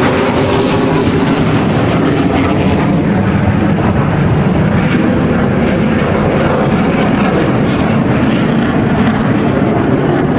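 F-16 Block 60 fighter's jet engine, a steady loud rushing jet noise as the jet flies high overhead.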